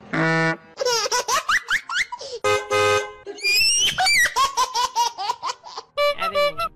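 A high-pitched voice laughing in quick short bursts, with a high rising squeal about halfway through.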